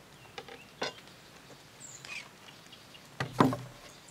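Handling of a padded fly-rod transport case and rod sections: a few light clicks and rustles, then a short thump about three seconds in as the case is set down on a wooden table.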